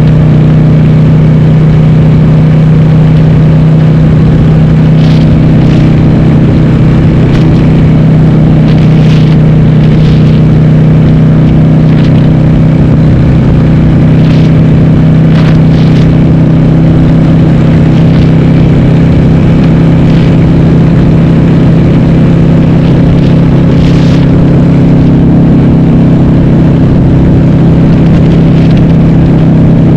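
Harley-Davidson Sportster V-twin, bored to 1200 cc, running loud through Cobra Speedster 909 pipes with the baffles (dB killers) removed. It holds a steady cruise, its pitch almost unchanged throughout.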